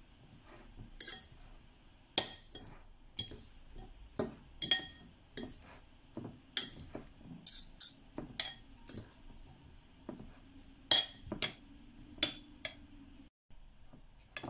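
Metal forks clinking against a glass bowl while tossing a salad: irregular sharp clinks, one or two a second, with a bright ringing tail.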